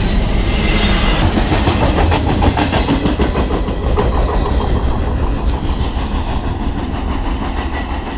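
Train crossing a steel railway bridge close by: a heavy low rumble with a dense clatter of wheels over the rails, easing off slightly toward the end.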